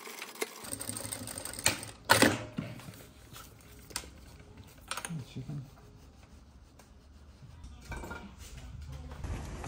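Scattered clicks and knocks of hands handling nylon webbing and a plastic ladder lock at a sewing table, the loudest about two seconds in.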